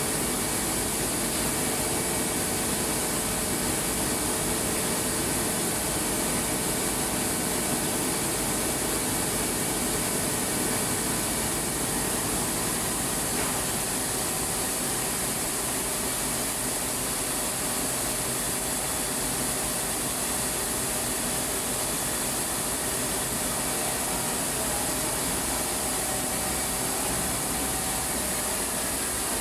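Rice milling plant machinery running steadily: a constant mechanical noise with a strong hiss and a few faint, steady whines.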